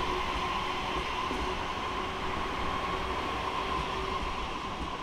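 High Capacity Metro Train (HCMT) electric multiple unit running past a station platform: steady rolling rumble with a steady high whine, easing slightly toward the end.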